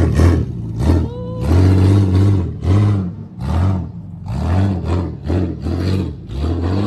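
A vehicle engine revved in a quick series of short bursts, each rising and falling in pitch.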